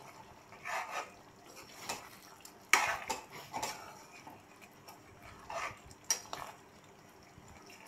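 Metal ladle scraping and knocking against a metal cooking pan while thick chicken curry is stirred: a series of separate scrapes and clinks, the loudest about three seconds in.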